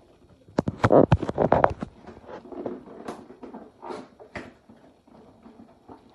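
Packing tape being picked at and ripped off a cardboard laptop box: a burst of crackling tearing about a second in, then scattered smaller scratches and rustles of fingers on the cardboard.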